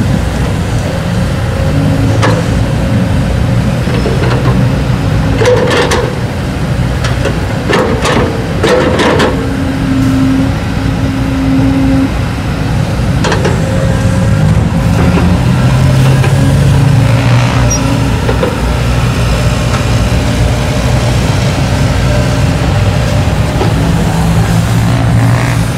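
Kobelco hydraulic excavator digging soil: its diesel engine running steadily, the note rising and falling as the arm and bucket work. Several clanks and knocks of the bucket against earth and rock in the first half.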